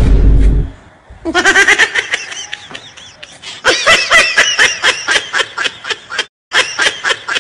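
A loud, low thump, then high-pitched laughter in quick runs of short bursts, several a second. The laughter drops out for a moment about six seconds in and comes back.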